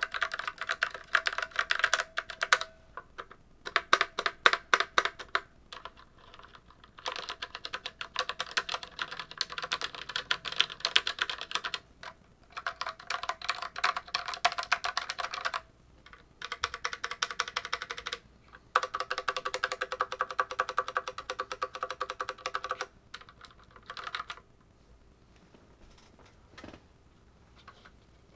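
Rapoo MT500 slim mechanical keyboard with red linear switches, typed on in quick runs of keystrokes while held up in the hand. There are about six bursts of rapid clicking with short pauses between them, thinning to a few faint taps near the end.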